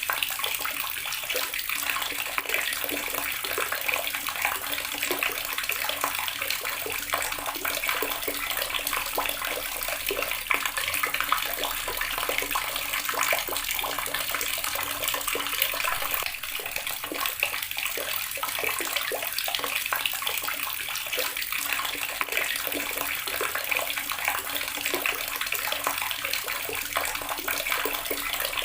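Water running steadily from a tap and splashing into a basin below, a dense, even splashing with many small spatters.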